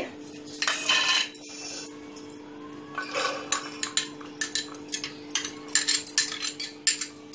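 Stainless steel kitchenware clinking and scraping: a steel spoon against steel bowls and a mixer-grinder jar as soaked chana dal and roasted peanuts are spooned in. Irregular clinks, with a few short scrapes about a second in and about three seconds in.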